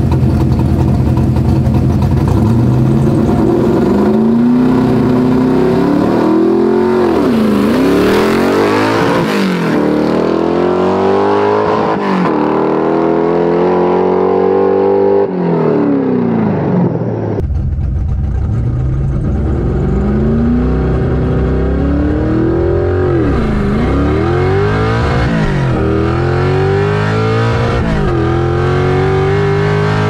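Stroked 351 Windsor V8 (410 cubic inches) in a 1986 Foxbody Mustang GT, running low at the start line, then launching and accelerating hard through the gears of its manual gearbox, the engine pitch climbing and dropping at each upshift. The sound breaks off suddenly about halfway and another hard run through the gears follows.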